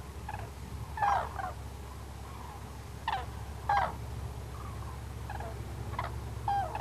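Common cranes calling: short, hoarse trumpeting calls, several in a row at irregular intervals, some with a falling end, over a steady low hum.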